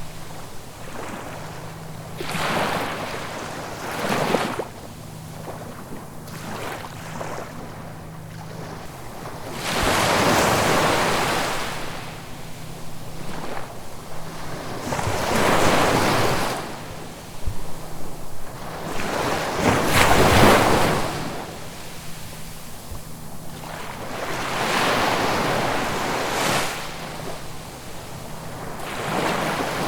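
Ocean waves breaking and washing up the shore, swelling and falling back about every five seconds, the biggest surges coming around ten, sixteen and twenty seconds in.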